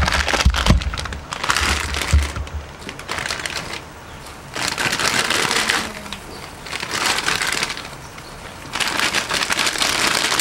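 Plastic Samyang instant-noodle packet crinkling as it is handled, in four separate bursts of crackling, with a few low thumps in the first couple of seconds.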